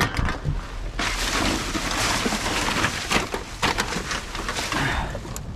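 Rummaging through dumpster rubbish for plastic bottles and cans: a dense crinkling and rustling, with scattered knocks and clatters.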